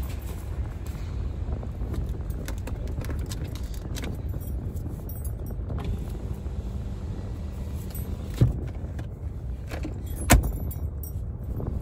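Steady low rumble of a car cabin with the engine running, under scattered small clicks and rustles of handling close to the microphone. Two sharper knocks come about eight and a half and ten seconds in, the second the louder.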